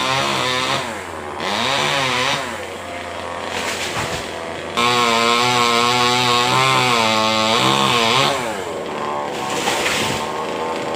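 Two-stroke chainsaw cutting a coconut palm, its engine speed rising and falling again and again as the chain bites and eases off. It is loudest for about three seconds from around the five-second mark.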